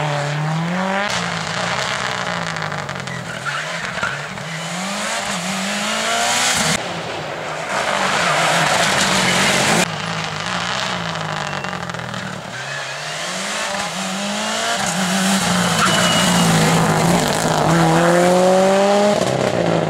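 Subaru Impreza rally car's turbocharged flat-four engine revving hard and changing gear, with tyre squeal. The sound changes abruptly twice, about seven and ten seconds in, and the revs climb again near the end.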